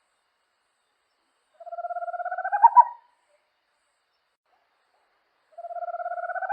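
A small owl calling: a fast purring trill that rises slightly in pitch over about a second and a half and ends in two louder accented notes. A second trill starts near the end.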